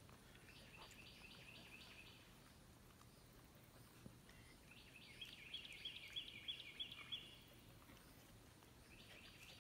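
Near-silent outdoor background with a bird singing faintly some way off: a run of quick repeated high notes about a second in, and another from about five to seven seconds.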